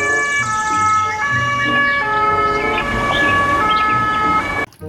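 Two-tone ambulance siren, alternating between a high and a low note about every 0.8 seconds, then cutting off suddenly near the end.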